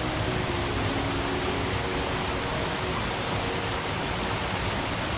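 Forest stream running: a steady rush of water. A faint low hum sits underneath during the first couple of seconds.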